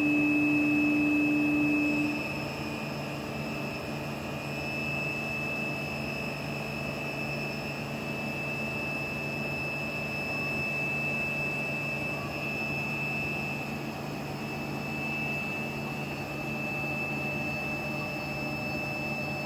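Steady machine hum of a powered-up Famar ERGO 250 CNC vertical turret lathe, with a constant high whine over it. A louder low hum cuts off about two seconds in.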